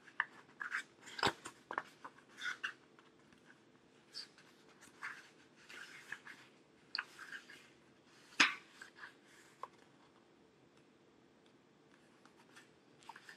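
Pages of a thick paperback being leafed through: an irregular run of short paper rustles and crisp page flicks, the sharpest about a second in and about eight seconds in.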